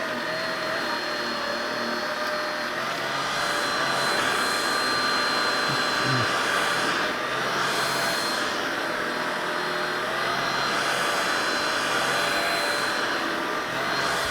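Tineco Pure One X cordless stick vacuum running steadily in auto mode: a continuous motor whine over rushing air.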